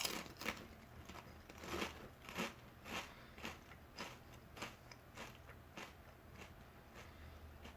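Potato chip bitten with a sharp crack, then chewed with a steady run of crunches about every half second that grow fainter as it is eaten.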